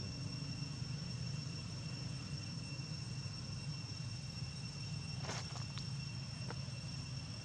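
Night insects, crickets, trilling steadily on two high pitches over a steady low hum. A few brief sharp noises come about five to six seconds in.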